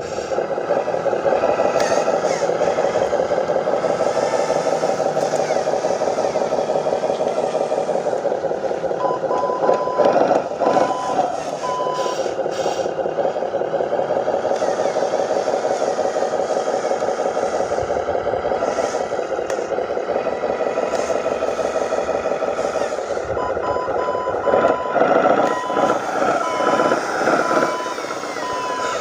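Remote-control dump truck running steadily with a slightly wavering drone. A reversing beeper sounds in runs of short beeps about a third of the way in and again over the last few seconds.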